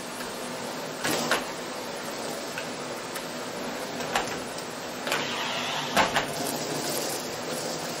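Miele S6 canister vacuum cleaner running steadily as its floor head picks up shredded paper, with short sharp rattles as pieces are drawn up the wand, the loudest about a second in and a pair around six seconds in.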